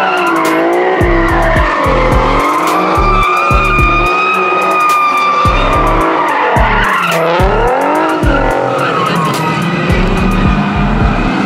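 Infiniti G37 coupe doing donuts: engine revving up and down with tires squealing, over music with a heavy bass beat.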